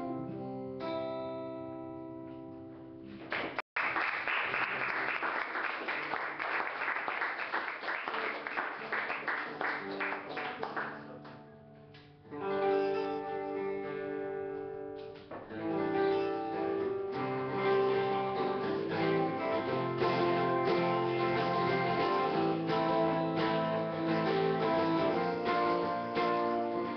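Solo acoustic guitar played live. Chords ring at first. A denser, noisier stretch then fades out about eleven seconds in, and from about twelve seconds on the guitar plays steady picked notes and chords.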